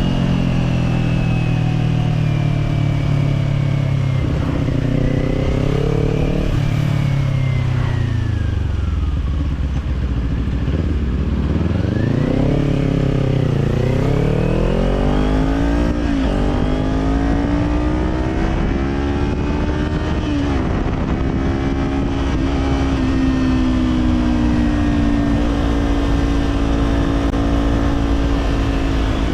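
Kawasaki Z400 parallel-twin engine through an aftermarket slip-on exhaust, heard from on the bike. The revs fall away slowly for the first third. They then climb hard through two quick upshifts, about halfway in, and settle to a steady cruise for the rest.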